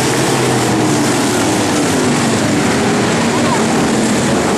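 Pure stock race cars' engines running around a dirt oval: a loud, steady drone of several engines together, with their tones drifting slowly in pitch.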